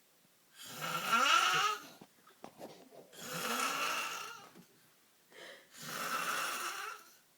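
A man snoring in his sleep: three long snores, each over a second, about two and a half seconds apart.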